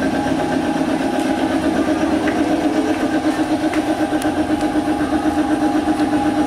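Half-horsepower electric air compressor running steadily, a low pulsing motor-and-pump hum. It is the compressor refilling its tank on its own after the pressure fell below its 60 PSI cut-in.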